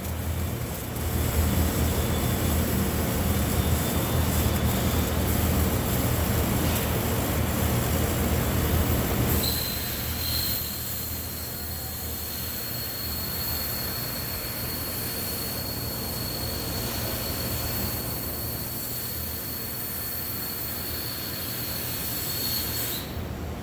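Pulsed MIG welding arc buzzing and crackling steadily inside a steel vessel. About nine seconds in it gets a little quieter and a thin high whine comes in and holds until near the end.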